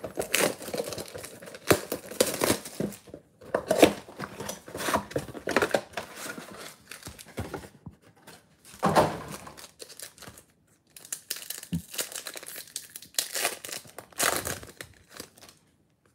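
Plastic shrink-wrap crinkling and tearing as it is stripped off a cardboard trading-card box. The box flaps are then pulled open and a card pack is unwrapped, in irregular rustling bursts with short pauses between them.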